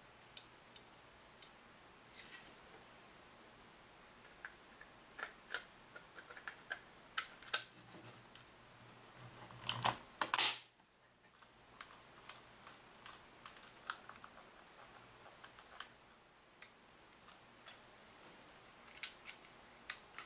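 Quiet scattered clicks and taps of a plastic telephone handset and its circuit board being handled and put back together, with a louder cluster of clicks and rubbing about ten seconds in as the handset's case halves are pressed shut.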